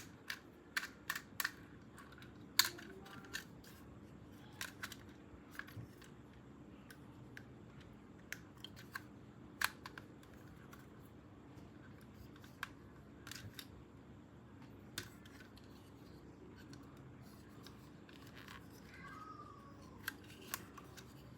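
Unboxing of toy packaging, heard as irregular sharp clicks and snips. The clicks bunch together in the first two seconds and are scattered after that, over a faint steady hum.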